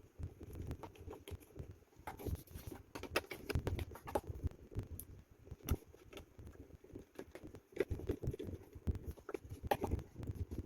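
Irregular clicks, taps and rubbing of small plastic parts handled at close range: 3D-printed pistol grip panels and their screws being removed from and fitted to an airsoft pistol's plastic frame.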